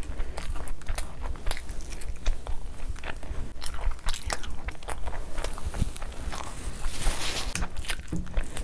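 Close-miked eating sounds: a mouthful of rice and curry being chewed with wet, sticky smacks and clicks, alongside a hand squishing and mixing rice and gravy on a foil tray. A louder rustle comes near the end.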